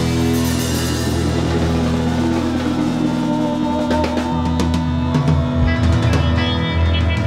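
Live rock band playing an instrumental passage on electric guitars, bass, keyboards and drum kit. A cymbal wash opens the passage, and the drums play busier, sharper hits in the second half.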